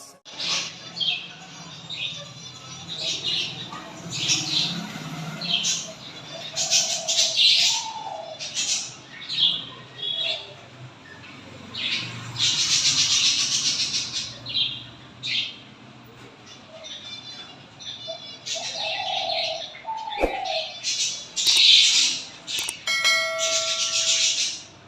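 A dove chick giving repeated high, squeaky begging chirps as the adult dove feeds it, with bursts of fluttering wing noise.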